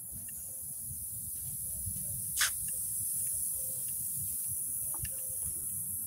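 Steady high-pitched buzzing of insects that she calls big stink bugs, over the irregular low rumble of walking footsteps and handling on a phone microphone. A single short sharp noise comes about two and a half seconds in.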